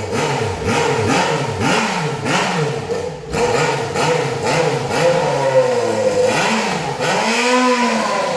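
Yamaha XJ6 inline-four motorcycle engine revved hard and loud, with the revs rising and falling in quick blips about twice a second. Near the middle the blips give way to two longer, slower rev swells.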